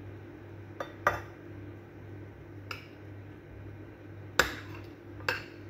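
A metal spoon and fork clink and scrape against a ceramic plate in about five short sharp knocks, the loudest about four and a half seconds in, over a low steady hum.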